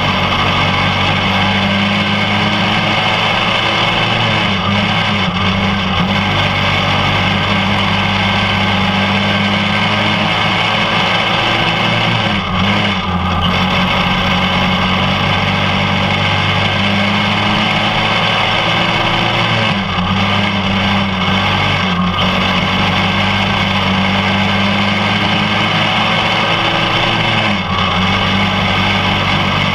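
Champ racing kart engine heard close up from on board, held at a steady pitch and dipping briefly several times as the driver lifts off for the turns.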